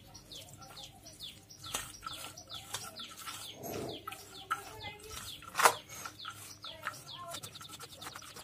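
A bird chirping over and over, short falling chirps about three or four a second. Under it is the crackling rustle of a hand mixing a chopped-vegetable momo filling in a steel bowl, with one sharp knock about two-thirds of the way through.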